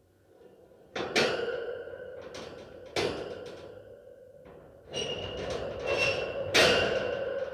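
Heavy iron dungeon cage door clanking as it is worked: metal strikes about a second in, again near three seconds and loudest near the end, each ringing on with a long echo, and a grating metal creak between them.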